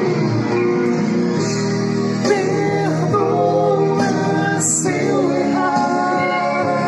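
Music: a romantic pop song with guitar, playing steadily.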